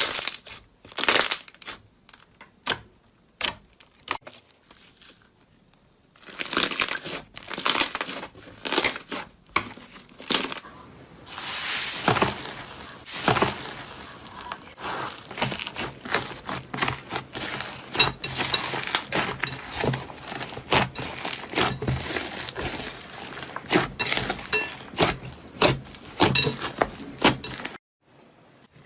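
Slime being squeezed and pressed by hand, making sticky crackles and pops: a few separate pops at first, then dense crackling from about six seconds in that stops abruptly near the end.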